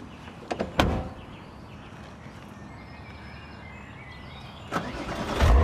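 A car door knocks and thuds shut about a second in. Near the end a car's engine and tyres swell loudly as it pulls away on gravel.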